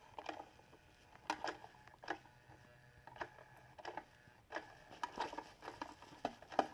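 Irregular faint taps, clicks and rustles of a kitten playing with a battery-operated PETLINKS Mystery Motion electronic cat toy while it runs.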